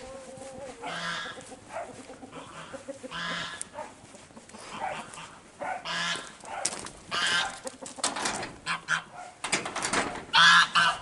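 Farmyard poultry calling: about seven short, harsh calls spaced a second or two apart, the loudest near the end. Footsteps crunch on gravel in between.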